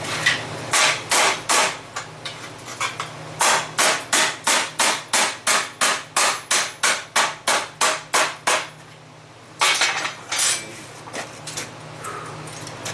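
Hand hammer striking a red-hot 3/4-inch square steel bar to bend it around a steel scroll jig on a steel table: a few scattered blows, then a fast steady run of about four blows a second, a short pause, and a few more blows. A steady low hum runs underneath.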